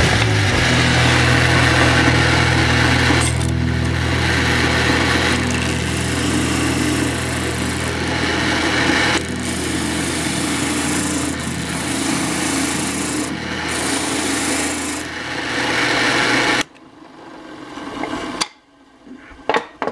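Drill press running a shop-made spindle sanding drum, its motor humming steadily while a plywood edge is pressed against the sandpaper with a gritty rasp that swells and eases as the piece is worked. About 17 seconds in, the sound cuts off abruptly, leaving only faint noises.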